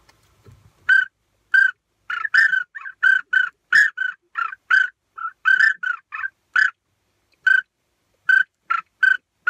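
Wing setter duck whistle blown in a long run of short, chirping whistle notes, some in quick pairs, imitating the call of a pintail drake.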